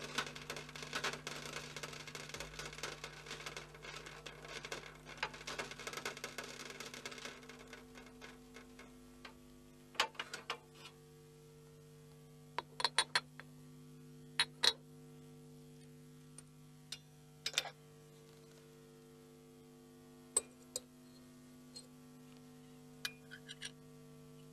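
Faint steady hum with a few short, sharp clinks of glassware as test tubes and a glass pipette are handled. A soft, dense rattling noise fills the first several seconds, then stops.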